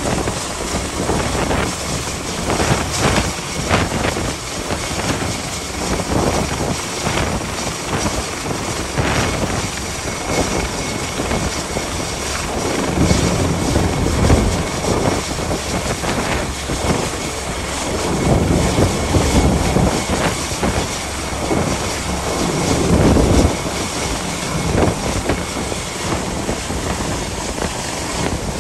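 Helicopter hovering near the ship, its rotor and engine noise mixed with gale-force wind buffeting the microphone, which swells in heavy low gusts several times.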